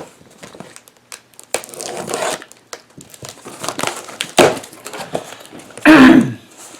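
Packaging being opened and handled: irregular crinkling, rustling and tearing of wrapping, with the loudest rustle about six seconds in.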